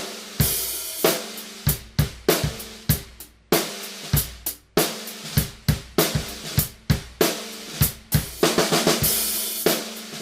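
Drum kit groove featuring a Mapex Black Panther Machete 14x6.5 metal snare at its lowest tuning, struck in a steady beat with kick drum and cymbals.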